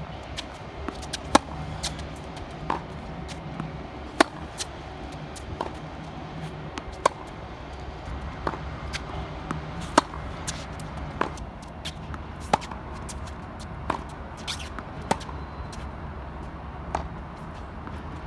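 Tennis ball struck hard with a racket on two-handed backhands in a rally, a sharp pop about every second and a half. Fainter knocks in between, over a steady low rumble.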